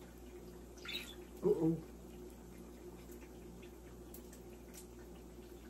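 Quiet kitchen room tone with a steady low hum, broken by a faint short noise about a second in and a brief louder sound about a second and a half in.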